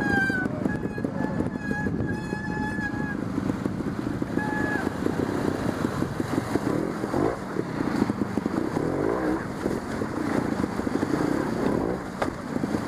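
Trials motorcycle engine running at low revs, the revs rising and falling as the bike is ridden down a rocky stream bed. A high, steady whistle-like tone sounds on and off in the first few seconds.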